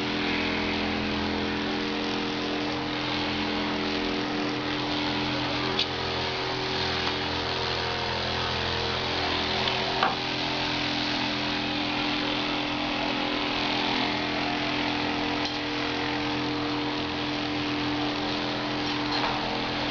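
Handheld electric Vibracussor percussion therapy device running steadily with an even motor hum as it is held against a large dog's lumbar spine, with a couple of light clicks about six and ten seconds in.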